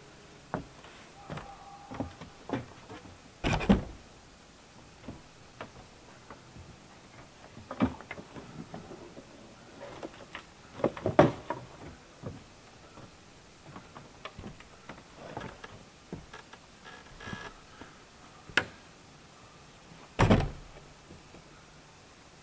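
Irregular knocks, clicks and thumps at uneven intervals, with louder thuds about three and a half, eleven and twenty seconds in.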